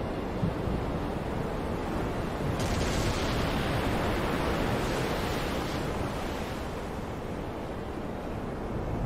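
Stormy sea waves and wind: a steady rush of surf noise, which turns brighter and hissier from about two and a half seconds in.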